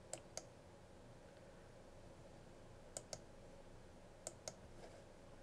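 Faint computer mouse clicks: three quick pairs of clicks spread over a few seconds, over quiet room hiss.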